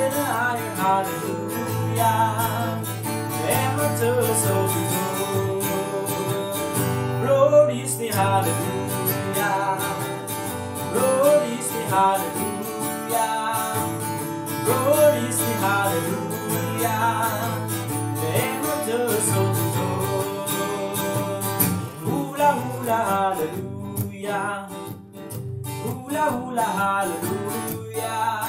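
Acoustic guitar strummed in a steady rhythm while a man sings a lively worship chorus in Albanian.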